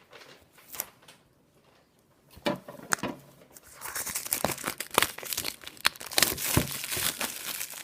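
Plastic packaging wrapper being handled: a few light clicks and taps, then from about four seconds in a continuous crinkling and rustling full of sharp crackles.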